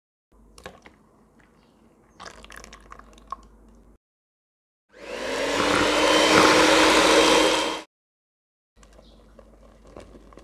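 Electric hand mixer starting up, running steadily for about three seconds and stopping as it beats a liquid cake batter of rayeb milk and red food colouring. Faint clicks and handling sounds come before it, and the soft patter of oat flour tipped into the bowl comes near the end.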